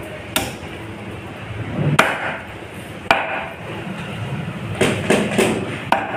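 A heavy cleaver chopping pieces of grey emperor fish on a chopping block: about six sharp blows at uneven intervals.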